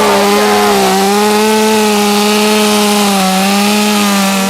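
Gas chainsaw held at full throttle, cutting through a thick tree limb. Its high engine note holds steady, sagging slightly now and then under the load of the cut.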